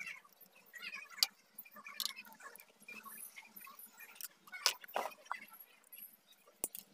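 Irregular small clicks, taps and scrapes from hands handling a CRT TV's switching power-supply module and its attached wires.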